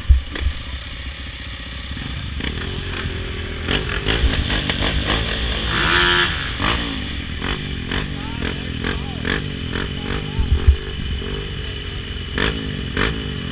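Several dirt bike engines running at idle, their pitch wavering, with a louder spell about six seconds in and a few sharp knocks, the loudest near the eleventh second.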